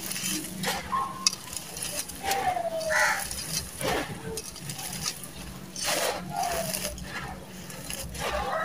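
Dry, gritty red sand-cement pouring out of a clay pot and crunching and crumbling under bare hands as they rake through the loose heap. A few short falling animal calls sound in the background, about two and a half and six seconds in.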